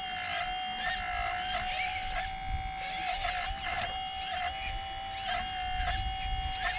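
Hydraulic pump motor of an RC excavator, whining at a steady pitch with brief dips as it takes load. Many short high chirps sound over it.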